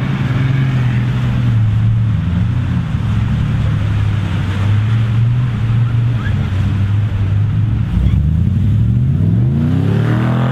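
Nissan Patrol 28D Turbo's 2.8-litre straight-six turbodiesel pulling steadily off-road, then revving up with a rising pitch over the last two seconds. A steady rushing noise runs beneath the engine.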